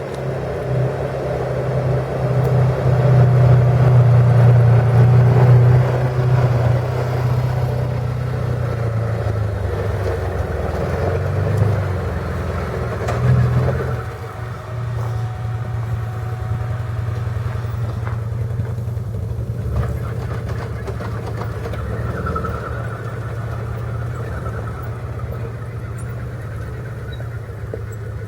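A motor vehicle's engine running steadily, a constant low hum that is loudest a few seconds in and eases a little about halfway through.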